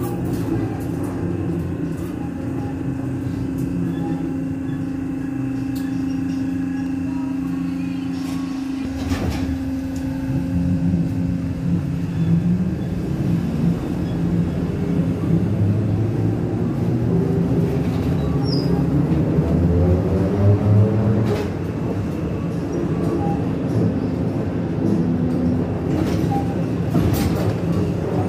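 Inside a moving BTZ-5276.04 trolleybus: a steady electric hum over the rumble of the ride for about the first twelve seconds. Then a whine rises in pitch as the trolleybus picks up speed, with a few sharp knocks from the body.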